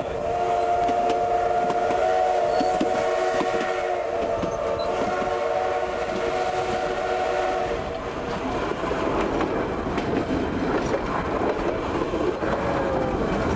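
Steam locomotive whistle sounding one long chord of several tones for about eight seconds, wavering slightly twice. After it stops, the coach and its wheels clatter and rattle along the rails.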